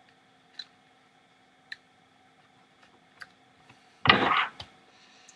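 A few light clicks spaced a second or so apart, then a short, louder clatter about four seconds in: hands handling the small plastic and metal parts of a 1/10-scale RC car and its wheels.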